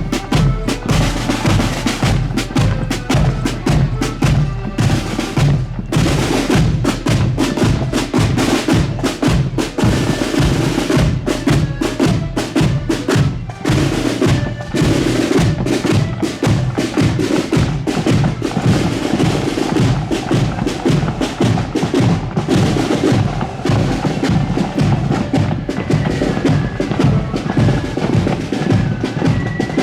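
Marching accordion band playing a march: accordions carry the tune over snare drums and a bass drum beating time.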